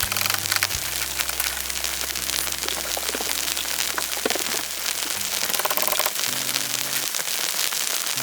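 Background music with held low notes, over a dense, continuous crackling patter.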